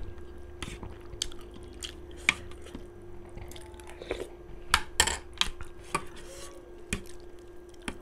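Close-up eating sounds: chewing on momo dumplings and noodles, with a spoon and fork clicking and scraping against a steel plate and a ceramic plate. The loudest clicks come about two and five seconds in, over a steady faint hum.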